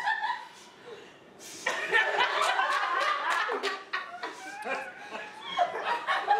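A group of people laughing and chuckling, starting about a second and a half in after a brief lull, with a few words mixed in.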